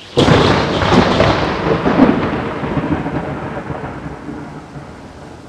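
A sudden loud boom about a fifth of a second in, then a rolling rumble that swells twice and dies away over about four seconds.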